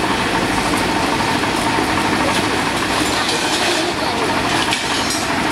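Fire engine's engine idling, a loud steady rumble with no breaks.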